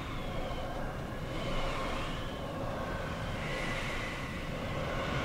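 A steady rumbling, rushing noise with faint wavering high tones over it.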